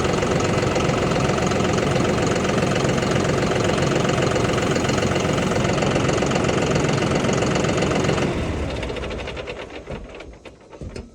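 Tractor engine running steadily with a knocking clatter, then shut off about eight seconds in, its beats slowing as it runs down over a couple of seconds.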